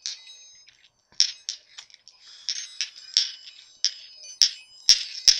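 Small metal balls rolled together in one hand, clicking against each other in an irregular run, several clicks a second, each with a high ringing tone that hangs on briefly. The clicks get louder near the end.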